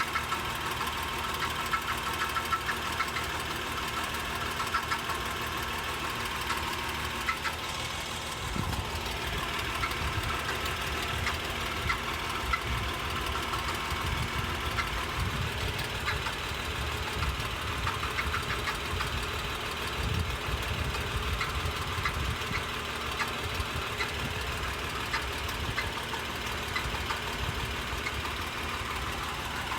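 2011 Acura MDX running, with a light, irregular rattle of small ticks over the steady engine sound: the rattling noise the owner is recording. About eight seconds in, a deeper low rumble joins and stays.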